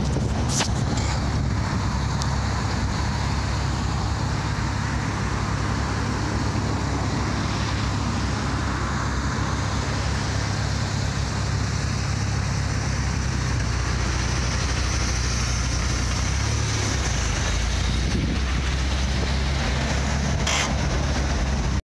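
Żuk van's swapped-in ZMZ-405 fuel-injected four-cylinder engine running steadily as the van drives over a rough dirt track, a constant low engine drone. Two brief knocks, about half a second in and near the end.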